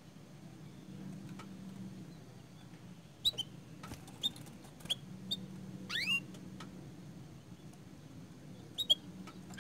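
Domestic canary between song bursts, giving a few short, scattered chirps, one a downward-sweeping call about six seconds in, over a steady low hum.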